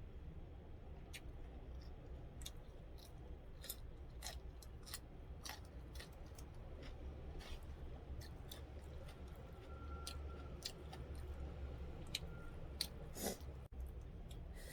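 Close-up eating sounds: quiet chewing with scattered, irregular small clicks and smacks, over a steady low hum.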